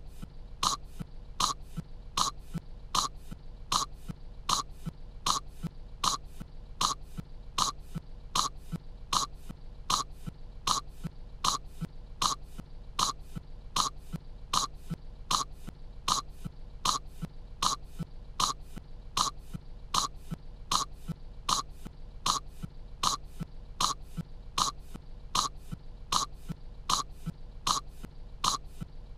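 A cartoon girl's voiced coughs, short and identical, repeating at an even pace of a little more than one a second, from clearing kettle corn from her throat.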